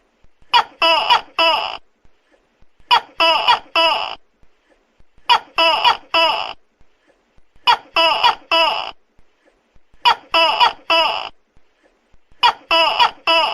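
Tokay gecko calling: a loud phrase of three quick "to-kek" notes, repeated about every two and a half seconds, six times.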